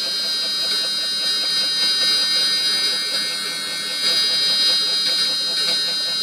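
CNC router spindle running at high speed with a steady high-pitched whine over a rougher cutting noise, as a 0.5 mm ball-nose bit makes a finishing pass in wood. It gets slightly louder about four seconds in.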